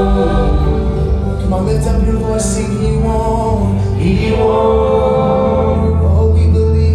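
Live gospel worship music: voices singing together in sustained, held notes over a band with a strong, steady bass.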